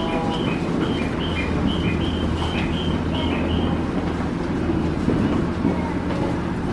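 JR East commuter train's door chime, a two-note high-low chime repeated about twice a second that stops about four seconds in, over the steady hum of the stopped electric train: the doors are closing before departure.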